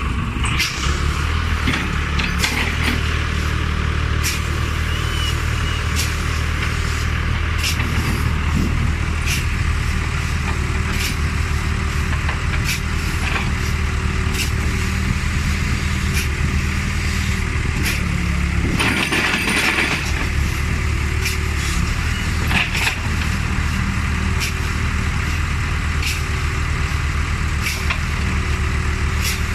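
Excavator's diesel engine running steadily, with scattered knocks and a brief hiss about nineteen seconds in.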